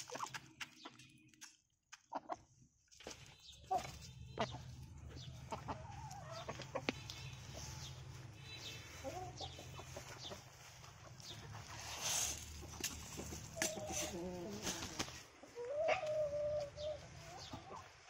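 Aseel chickens clucking in short calls at intervals, with a few calls close together about two-thirds of the way through, over a steady low hum that stops near the end.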